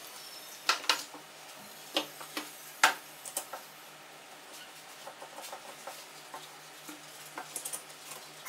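Metal tubes of a toilet grab-bar frame clicking and knocking as leg tubes and connectors are pushed into its joints: several sharp clicks in the first three seconds or so, then softer, quicker rattling clicks.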